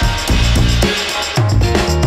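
Backing music: an instrumental stretch of a rap track, with heavy kick-drum hits and bass under sustained synth notes.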